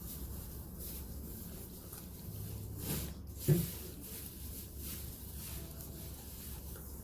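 A small pet chewing cabbage stalk, with irregular crunches, and one sharp thump about three and a half seconds in.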